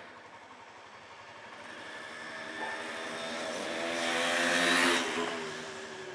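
A motor vehicle passing along a street: its engine noise builds, is loudest about four to five seconds in, then fades, leaving an engine hum running at the end.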